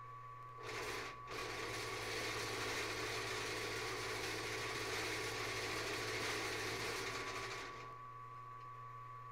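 Benchtop milling machine running with a steady motor whine and low hum. From about half a second in until near the end, the end mill cuts into the metal workpiece, a louder rough cutting noise that breaks off briefly about a second in.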